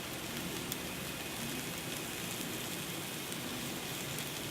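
Egg noodles sizzling as they fry in a hot wok: a steady hiss with a few faint pops.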